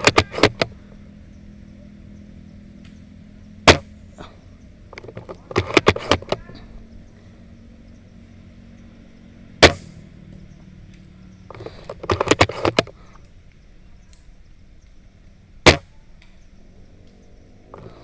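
Airsoft guns firing: three single sharp cracks about six seconds apart, each coming a second or two after a short cluster of quicker clicks, over a faint low hum.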